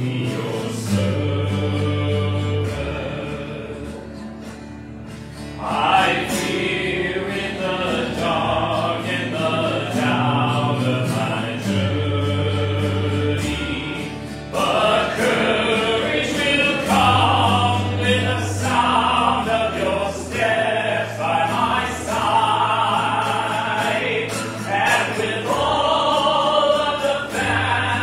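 A congregation sings a hymn over organ accompaniment with long held bass notes. The voices come in strongly about six seconds in, drop out briefly near the middle, then resume.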